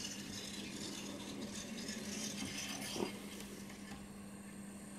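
Faint handling noises from hands working on model-railway track and wiring: a soft rustle and one light click about three seconds in, over a steady low hum.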